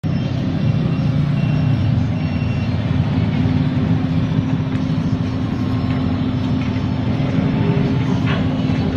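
Excavator's diesel engine running steadily under load, a low even drone, with a few faint squeaks and clicks from the working machine.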